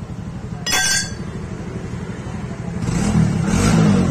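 A metal spanner clinks and rings sharply once, about a second in, as it works on a motorcycle's rear brake pedal, over a steady drone of an engine running. The low sound grows louder near the end.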